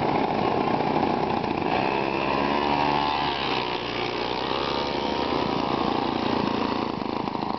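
Go-kart's small petrol engine running as the kart drives past, its pitch rising and falling between about two and four seconds in.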